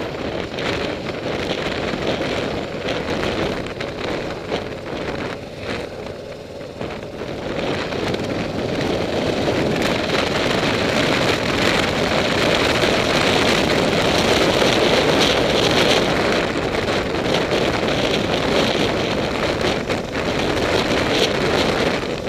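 Wind rushing over the microphone on a moving motorcycle, mixed with engine and road noise; it grows louder about a third of the way in and then holds steady.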